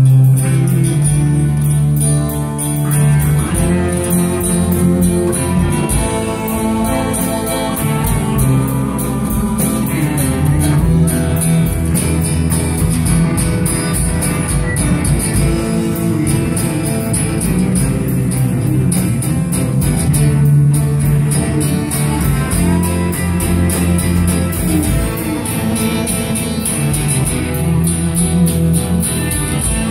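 Live rock band playing a song: guitars over a drum kit, with a steady cymbal beat.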